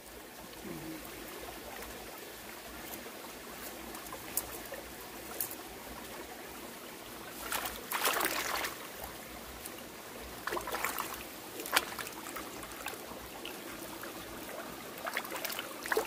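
Hands swishing a bunch of freshly picked wild herbs through a shallow stream, splashing the water in a few bursts: about halfway through, a little later, and again near the end. Between the splashes the stream trickles steadily over the rocks.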